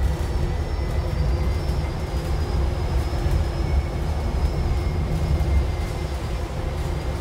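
Cabin noise on the upper deck of a Wrightbus Streetdeck Hydroliner hydrogen fuel-cell electric bus under way: a steady low rumble from the road and body, with faint steady high-pitched whines over it.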